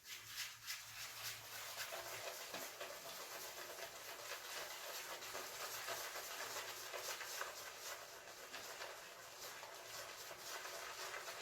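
Wet shaving brush being worked against shaving soap, a steady soft bristly rustle with fine rapid crackling.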